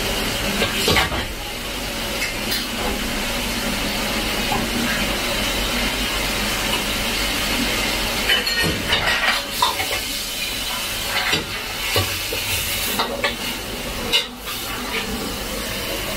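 Vegetables stir-frying in a steel wok: a steady sizzle, with a metal ladle scraping and knocking against the pan, the knocks coming more often in the second half. A tap runs steadily into a pot alongside.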